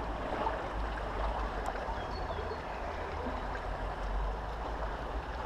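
Shallow river water running steadily over a stony, gravelly bed, with a low steady rumble underneath.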